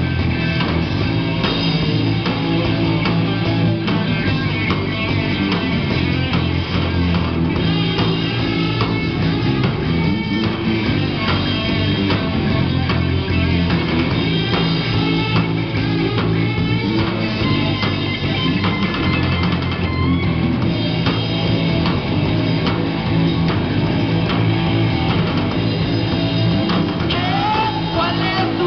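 Rock band playing live: electric guitars and a drum kit in a steady, unbroken instrumental passage, with no vocals.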